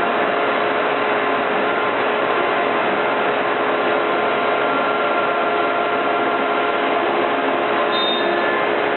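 A CNC wood router's spindle, fitted with a 1/4-inch bit, running and cutting MDF: a loud, steady machining noise with a few constant tones through it.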